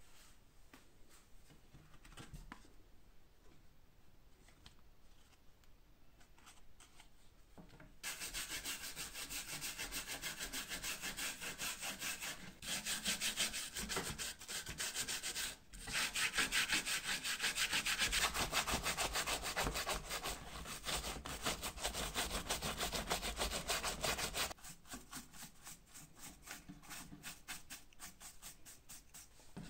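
Bristle brushes scrubbing the old leather panel of a fireplace bellows. Rapid back-and-forth toothbrush strokes are loud from about eight seconds in, then give way to softer brush strokes near the end.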